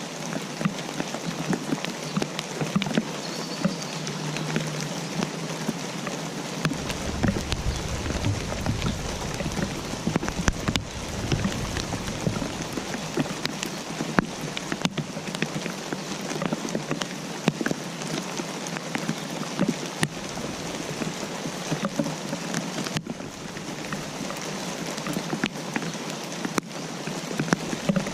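Steady rain, with many individual drops ticking on a surface. A low rumble rises under it about seven seconds in and dies away a few seconds later.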